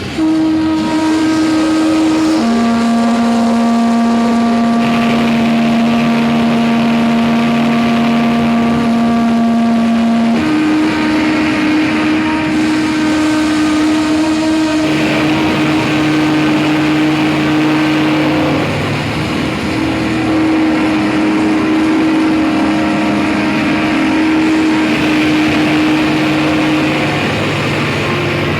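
Live harsh-noise and drone electronics: a loud, dense wall of distorted noise under sustained droning tones that hold for several seconds, then jump to a new pitch. The sound cuts in abruptly at the start.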